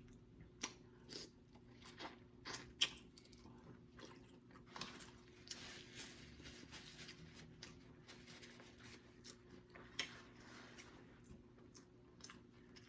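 Faint close-up chewing of stewed lobster tail meat, with scattered soft wet mouth clicks.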